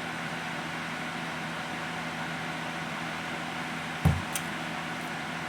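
Steady background hum and hiss of a room, with a short low thump about four seconds in and a sharp click just after it.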